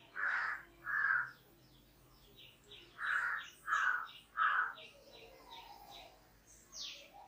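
Birds calling: two loud harsh caw-like calls, then three more a couple of seconds later, over a run of quick high chirps from smaller birds. A high falling whistle comes near the end.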